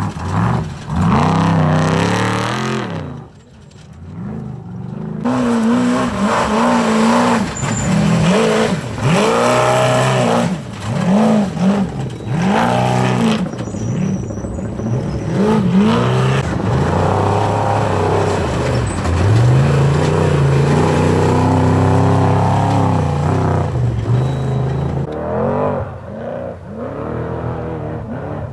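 Off-road trophy truck engines racing past over rough desert ground, the engine note swelling and falling again and again with the throttle. There is a short lull about three seconds in, and a longer steady high run of the engine a little after the middle.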